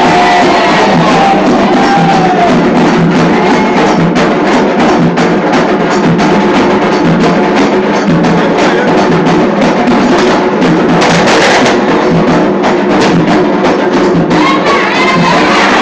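Candomblé ceremonial music: fast, loud drumming with a sharp, clicking struck percussion over it. Singing voices come in during the first couple of seconds and again near the end.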